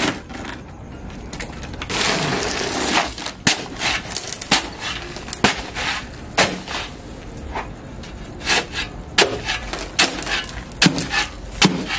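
A shovel blade stabbing and chopping into a paper bag of concrete mix lying in a rusty steel wheelbarrow, a string of sharp uneven knocks and scrapes. A short rush like something being poured comes about two seconds in.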